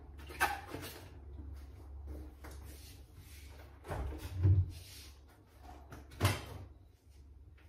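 Refrigerator door being opened and shut: a few knocks and thuds, the heaviest thud about four and a half seconds in and a sharp knock a little after six seconds. A low hum runs under the first half.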